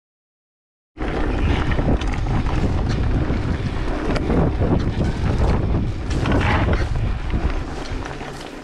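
Mountain bike riding down a dirt singletrack: wind buffeting the camera's microphone, with tyres rolling over the dirt and the bike rattling over bumps. It cuts in suddenly about a second in and eases a little near the end.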